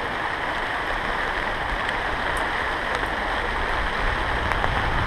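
Steady rushing of shallow river rapids over rocks, mixed with falling rain, with a few faint ticks of raindrops.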